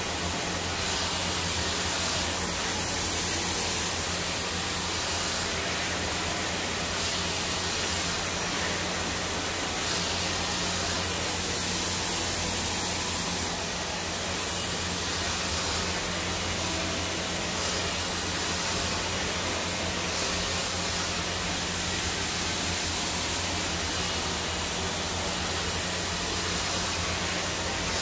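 Handheld hair dryer running steadily, a constant rush of blown air over a low motor hum, as the hair is dried straight over a round brush.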